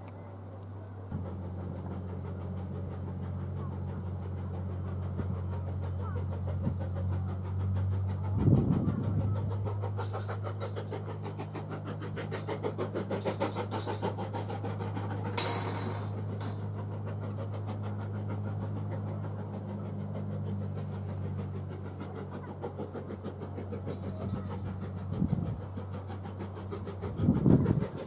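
An engine running with a steady low hum, slightly louder after the first second, with a few short knocks or buffets over it.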